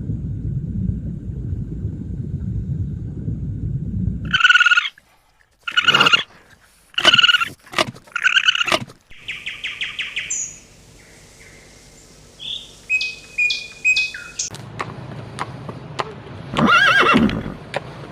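A run of animal calls: a low rumble, then four or five short pitched calls, a quick trill and several short chirps. Near the end comes one louder call that rises and falls.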